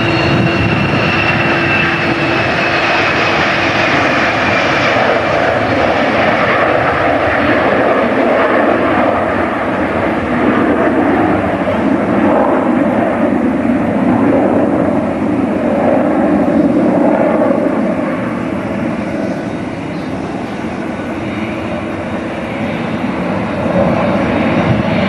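Airliner engines running loud and steady, with a high whine sliding slowly lower over the first few seconds. The sound eases a little for a few seconds late on, then rises again.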